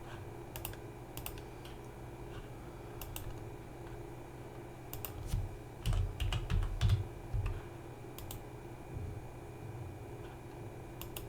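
Computer keyboard keystrokes, sparse and irregular, with a quicker cluster of keys and some low thumps about six to seven seconds in, over a faint steady hum.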